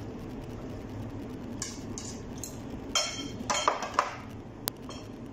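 Spoons clinking and scraping against bowls and plates while eating: a few short clinks from about a second and a half in, a busier cluster past the middle, and one sharp click near the end.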